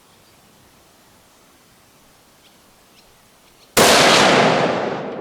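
Ruger Precision Rifle in .308 Winchester firing a single shot nearly four seconds in, its report dying away over about two seconds as it echoes off the range. Two faint clicks come shortly before the shot.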